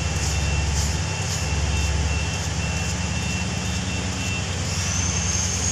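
A large engine running steadily on a blasting site, with an even hiss over it. A thin high whine comes in near the end.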